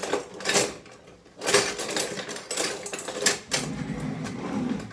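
Metal kitchen utensils clattering and clicking in a string of sharp knocks.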